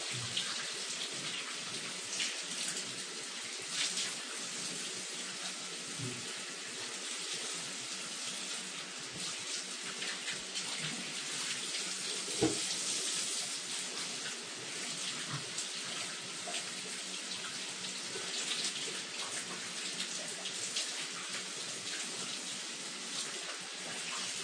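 Shower running: a steady hiss of water spray, with a few brief louder spatters.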